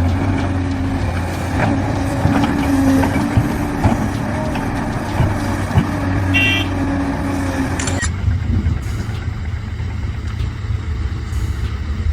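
Heavy earthmoving machinery at work: large diesel engines running with a steady low drone, and occasional clanks. About eight seconds in, the higher sounds cut off abruptly, leaving the low engine drone.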